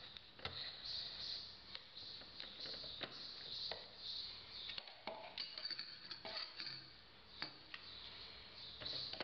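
Faint scraping of a metal spatula stirring a geopolymer paste in a small plastic cup, with many light clicks and taps of the blade against the cup.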